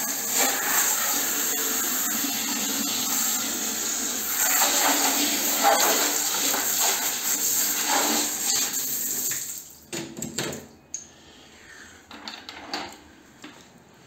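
Water from a handheld shower head spraying into a vacuum cleaner's plastic water-filter tank, a steady hissing splash. The spray stops about two-thirds of the way through, and a few scattered knocks and clatter of the tank being handled follow.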